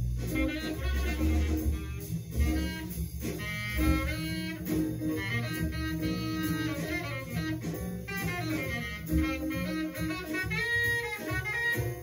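Small-group jazz playing from a mono record through a hi-fi system: horns over double bass.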